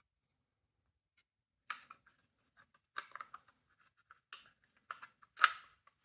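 Handling noise from taking apart a smoke detector: five sharp clicks and knocks of small parts, with lighter ticks between them. The loudest comes about five and a half seconds in.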